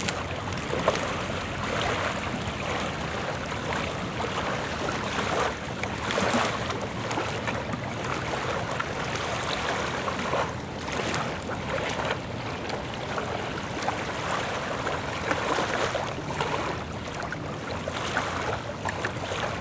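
Wind gusting on the microphone over choppy lake water lapping, in irregular surges with no steady tone.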